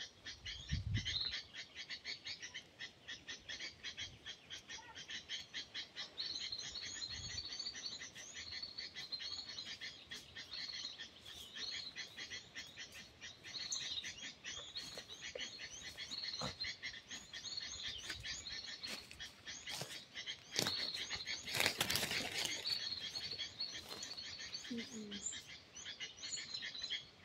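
Fast, high-pitched pulsing chirps repeating steadily, with a louder rushing burst about three-quarters of the way through.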